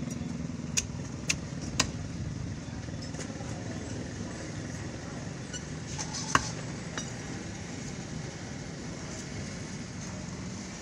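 A heavy cleaver chopping fish on a wooden block: three sharp chops about a second in, then one louder chop around the middle. A steady low rumble of engines and traffic runs underneath.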